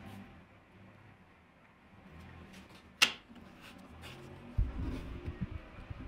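A digital angle gauge and a sliding bevel being handled on a steel saw table: one sharp click about halfway through, then a cluster of soft low thumps as the gauge is held against the bevel's blade.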